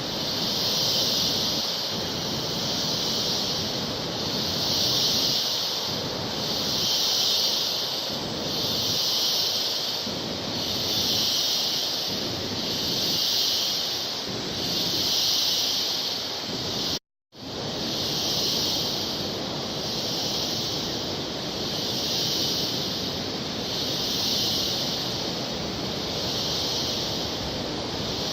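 Steady rushing of a waterfall, overlaid by a high shrill hiss that swells and fades about every two seconds. The sound cuts out for a moment about 17 seconds in.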